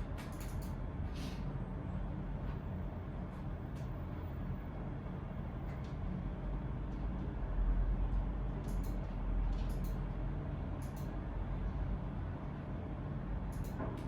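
Steady low room rumble, swelling briefly about eight seconds in, with scattered light clicks and taps of people working.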